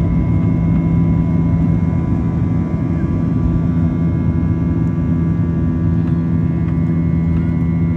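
Boeing 737-800 cabin noise heard from inside the cabin: the CFM56 jet engines running steadily, a loud low hum with several steady whining tones above it.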